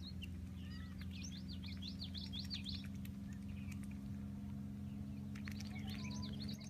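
Small birds chirping in quick, repeated up-and-down notes, busiest in the first few seconds and again near the end, over a steady low hum.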